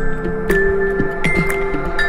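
Background music: sustained held notes over light ticking percussion.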